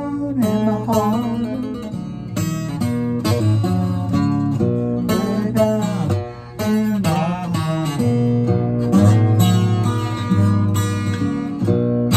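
Twelve-string acoustic guitar being strummed and picked continuously, chords and single notes ringing with the doubled-string shimmer.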